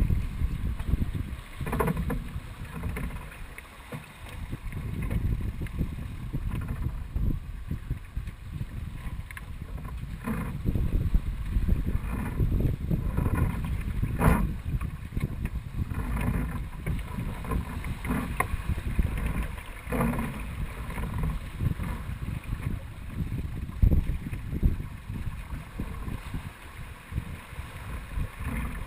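Wind buffeting the microphone over water rushing along the hull of a Dufour 45e sailing yacht under way, with a few sharp knocks.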